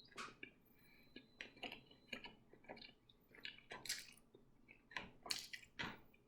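A person chewing a mouthful of sushi close to the microphone: faint, wet, irregular mouth clicks, about three a second.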